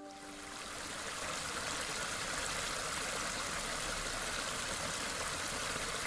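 Water pouring over a small rocky cascade in a stream: a steady rushing trickle that fades in over the first second.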